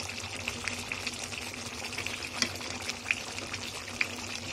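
Thick chicken masala sizzling and bubbling in a kadai over a high flame, a steady hiss with many small crackling pops and a few louder ones. The masala is frying until the oil separates from it.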